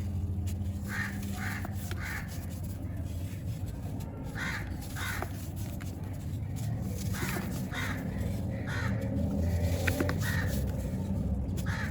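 Crows cawing: short harsh calls in small bunches of two or three, repeated several times, over a steady low hum.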